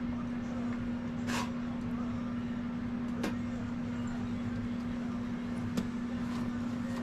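Steady low room hum, like a small motor or appliance running, with a few faint knocks and handling sounds.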